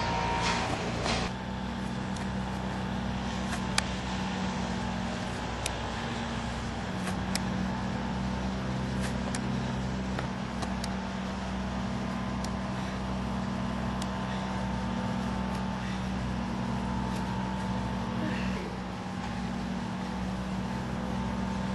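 A steady low mechanical hum, with scattered faint sharp clicks every second or so.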